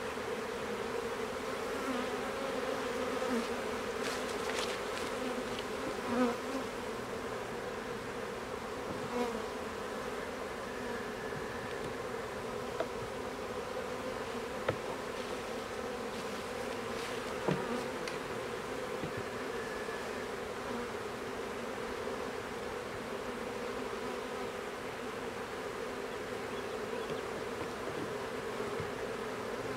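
Honeybees buzzing around an open hive as a nucleus colony is moved in, a steady drone throughout. A few short sharp knocks come from frames being handled.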